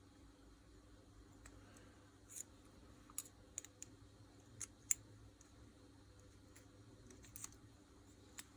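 Faint, irregular sharp metal clicks as small steel parts of a Makita 4329 jigsaw's blade mechanism are handled and rocked to show play from wear. The clicks are scattered from about two seconds in, the loudest about five seconds in.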